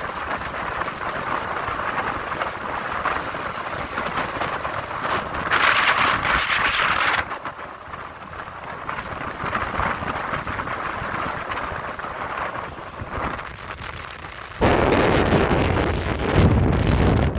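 Wind rushing over the microphone of a moving open vehicle on a highway, with a steady hiss of road and engine noise. There is a louder hissing stretch about six seconds in, and heavy low wind buffeting over the last three seconds.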